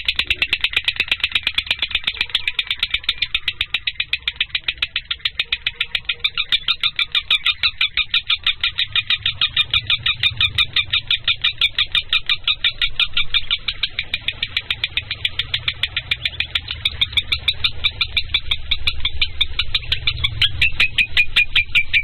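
Lovebird calling in a long, unbroken run of sharp, high chirps repeated several times a second.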